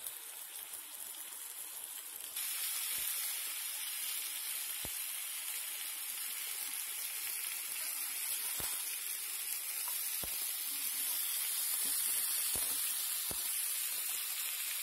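Spice-marinated fish steaks sizzling as they shallow-fry in oil on a flat griddle pan: a steady hiss that grows louder about two seconds in, with a few brief clicks here and there.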